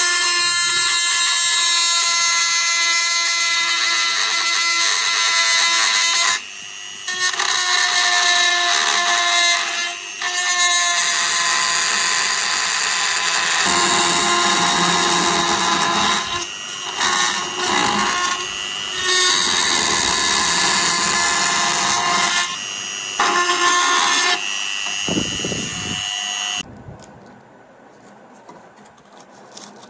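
Handheld electric power tool running in long stretches, its motor whine shifting in pitch several times with short dips, then stopping near the end.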